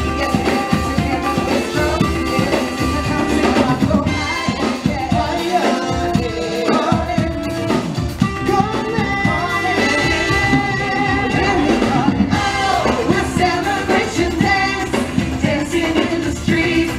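Live street band playing upbeat dance music: a singer over electric guitar and drum kit, with a steady beat.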